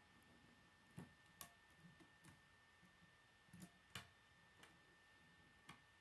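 Faint, irregular clicks and taps of plastic K'nex rods and connectors being handled and snapped together, about eight in a few seconds.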